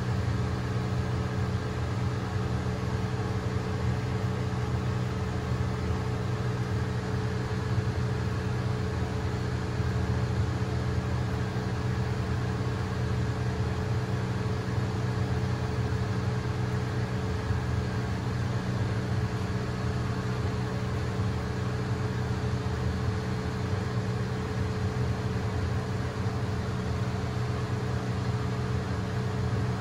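Electric hair clippers running with a steady, unbroken buzz.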